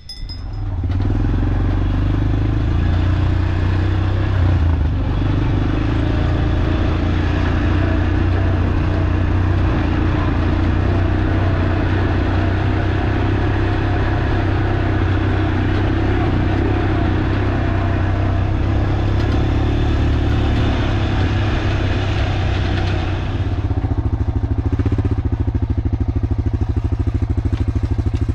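Small motor vehicle engine running steadily while driving, coming in suddenly about half a second in and settling to a lower, more pulsing run about 23 seconds in.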